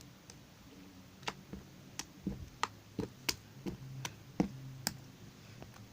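Sticky homemade butter slime worked by hand, making about a dozen small irregular clicks and taps.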